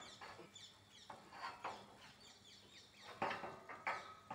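Small birds chirping, many short, quickly falling calls one after another, with a couple of louder knocks about three seconds in.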